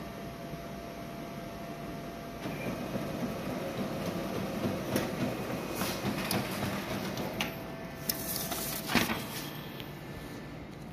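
Lexmark X658de laser multifunction printer running a print job, feeding a page through without jamming: a steady mechanical whir that grows louder about two and a half seconds in, with scattered clicks of the paper path and a louder clack near the end as the page comes out.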